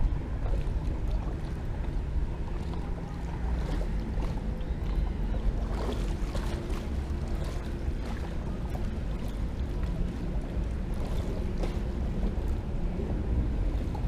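Wind rumbling steadily on the microphone, with water lapping at a small boat's hull and a few faint taps.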